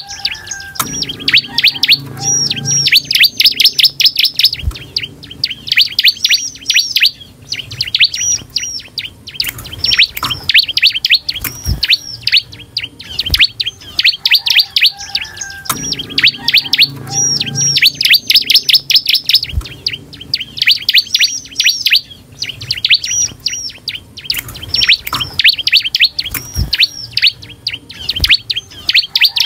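Bar-winged prinia (ciblek) singing: loud, fast runs of high chirping notes in tight repeated phrases, broken by short pauses, with the same song sequence coming round about every fifteen seconds.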